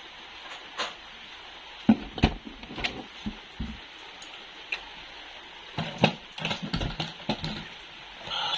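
Irregular clicks and knocks of plastic toy vehicles being handled and set down, over a steady hiss.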